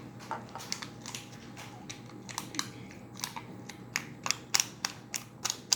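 Slime being pressed and squished by hand into a small plastic keychain container, giving a run of sharp little clicks and pops. They come sparsely at first, then faster and louder in the last couple of seconds.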